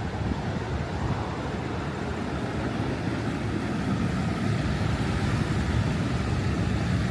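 Steady rushing noise of Niagara Falls' falling water, heaviest in the low end and swelling slightly toward the end.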